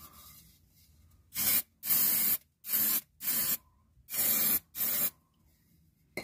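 Six short hisses of a spray nozzle, each about half a second long, as cavity rust-protection is sprayed into a car body's hollow section.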